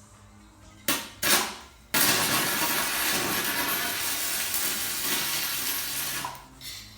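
Stick welding with a 6010 (5P+) rod on a DC welder: the arc catches with two short sputters about a second in, then burns with a steady crackle for about four seconds before breaking off, with one brief sputter near the end.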